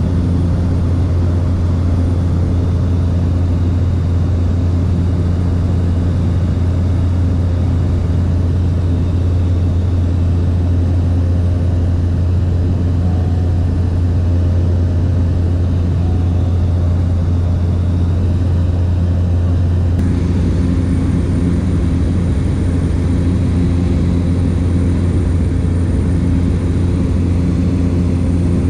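Steady drone of a light propeller aircraft's engine and propeller in cruise, heard from inside the cabin, with a slight shift in tone about twenty seconds in.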